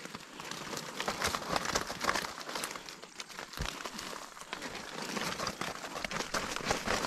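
Irregular rustling and crackling as a bubu fish trap and its catch of climbing perch are handled.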